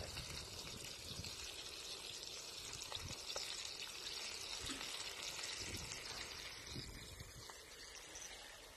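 Sausages sizzling in a frying pan over a gas canister camping stove: a steady hiss with small crackles, fading near the end.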